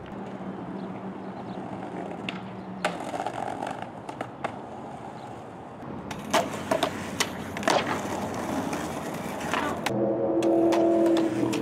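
Skateboard wheels rolling on concrete, with several sharp clacks of the board hitting the ground, the loudest in the middle. A steady pitched sound with several tones comes in near the end.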